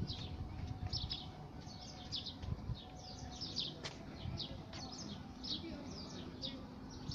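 Small birds chirping: short high chirps repeating about twice a second.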